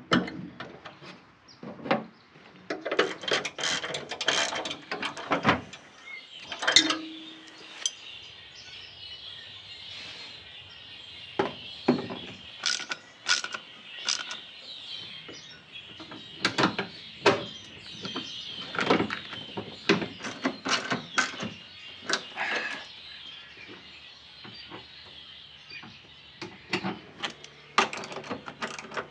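Irregular clicks, knocks and rattles of hand tools and plastic and metal parts being handled and fastened while an airbox and its ducting are fitted in an engine bay, with birds chirping faintly in the background.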